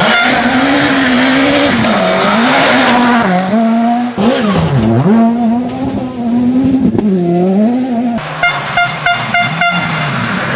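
Rally car engine revving hard and changing gear as it drives through a water splash, the pitch climbing and dropping several times. Near the end comes a quick run of sharp cracks.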